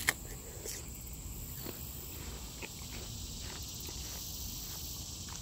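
Footsteps on dirt and grass, with insects making a steady high-pitched buzz behind them. A single sharp click sounds right at the start.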